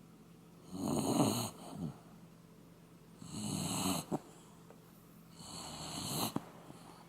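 Shiba Inu snoring in her sleep, like an old man: three snores about two and a half seconds apart, each ending in a short click.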